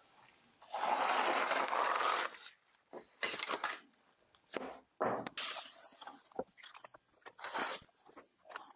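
Large sheet of paper crinkling and scraping as it is smoothed flat on a CNC bed and held down with blue painter's tape: a longer rustle about a second in, then several shorter crackles.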